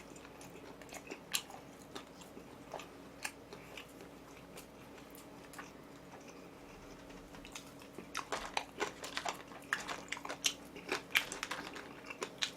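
A person chewing food close to the microphone: scattered wet mouth clicks at first, then steady, rapid chewing from about eight seconds in.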